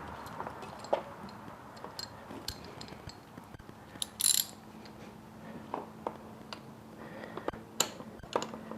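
Socket ratchet on a long extension clicking in irregular strokes, with metal taps, as a spark plug is tightened. A short louder rasp comes about four seconds in.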